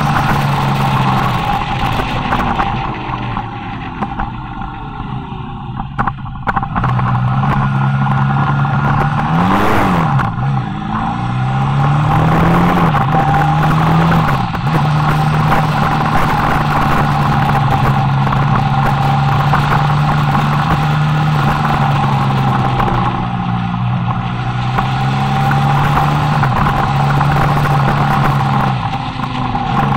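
Motorcycle engine heard from on board while riding at speed, over a constant rush of noise. Its note holds steady for long stretches, falling and rising again about ten seconds in, once more a few seconds later, and again a little before the end.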